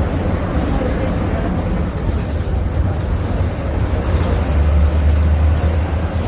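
Agrale MA 17.0 bus's MWM MaxxForce 7.12 TCE six-cylinder inline turbo-diesel running with a steady low drone that grows stronger about four and a half seconds in.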